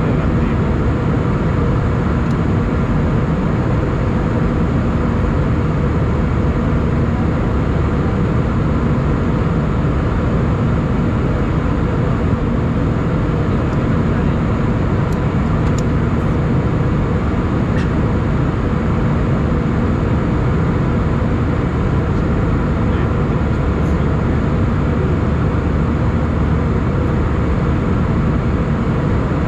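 Airbus A320 cabin noise in flight, heard at a window seat: a steady, even roar of the jet engines and rushing air, with a faint low hum running through it.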